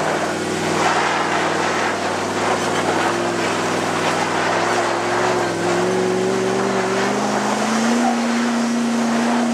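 Jeep Grand Cherokee ZJ's 5.2-litre V8 pulling hard under load up a steep dirt hill climb, its revs rising slowly from about halfway through and holding high near the end, over the rushing noise of tyres spraying loose dirt.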